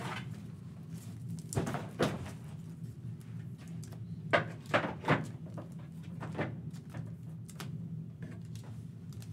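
A trading-card box being handled and opened on a table: a few sharp knocks and thuds, the loudest three close together about four to five seconds in, over a steady low hum.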